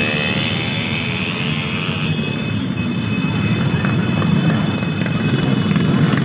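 Motor scooters and motorcycles riding past in a steady stream, a continuous mix of small engines running.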